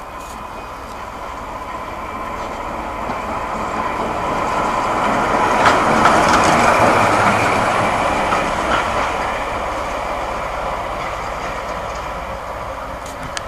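British Rail Class 14 diesel-hydraulic locomotive D9516 passing close by, its Paxman Ventura diesel engine running. The sound builds to a peak about six seconds in as the locomotive goes past, then fades as it draws away.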